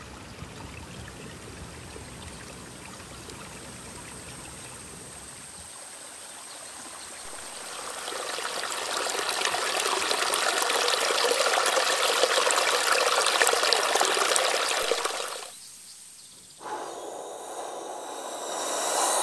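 Water running and trickling, as in a stream. It grows louder about a third of the way in, cuts off suddenly near the end, and is followed by a short rising rush of noise.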